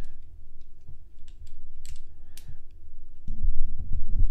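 Plastic parts of a Transformers Studio Series Nightbird action figure clicking and clacking as they are moved and pushed into place by hand, with a cluster of heavier handling knocks near the end.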